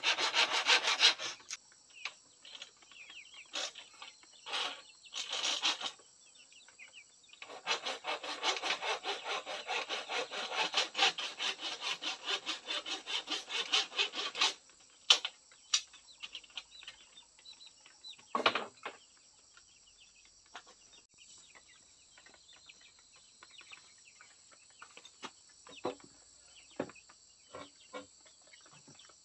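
Hand saw cutting in quick back-and-forth strokes: a short spell at the start and a longer one of several seconds mid-way. Several separate knocks follow.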